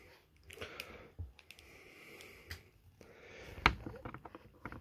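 Small plastic clicks and handling noises from a plastic action figure being adjusted and posed by hand, with its cloth cape shifted. The sharpest click comes about three and a half seconds in, with a run of lighter ones near the end.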